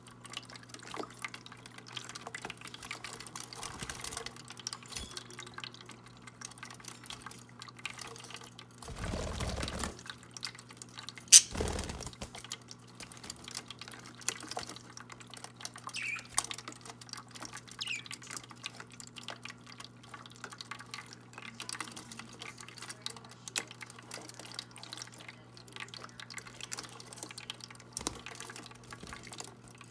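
Small electric bird-bath water fountain trickling and splashing under a steady low hum. A few brief budgie chirps are heard, and a sharp knock comes just after a noisier swell of water about ten seconds in.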